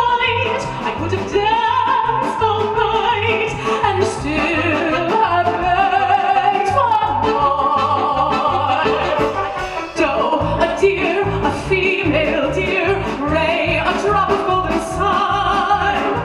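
A female soprano sings with vibrato over a live band, carried by a steady bass and drum rhythm. About ten seconds in there is a brief dip and the music switches to a different song.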